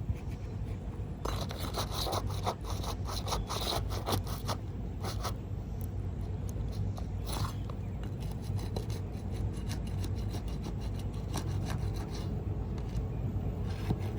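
Scraping and rasping against asphalt roof shingles during a shingle replacement: a dense run of quick strokes for about six seconds, then scattered scratches, over a steady low rumble.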